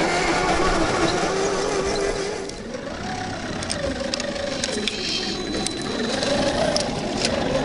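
Whine of 1/10-scale RC Defender 90 crawlers' electric motors and geartrains as they crawl over loose dirt, the pitch shifting with the throttle. About two and a half seconds in, the whine drops briefly and comes back higher, and scattered sharp ticks follow.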